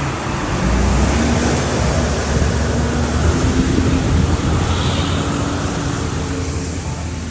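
Water rushing out of a broken water main as a tall geyser, a steady loud spraying and splashing, with a low hum underneath. The rush eases off a little over the last few seconds as the main is being shut off at the valve.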